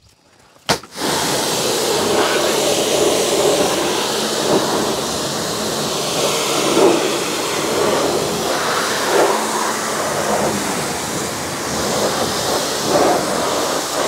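High-pressure water jet from a 4 HP commercial pressure washer's lance hissing steadily as it sprays a car's tyre and wheel arch, starting about a second in just after a short click. The noise is the jet of water itself; the washer's motor runs almost silently.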